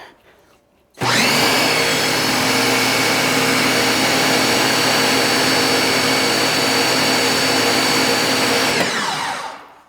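Ryobi electric pressure washers run together: their motors and pumps start suddenly, rise briefly to speed and run steadily at spray for about eight seconds, then wind down with falling pitch near the end.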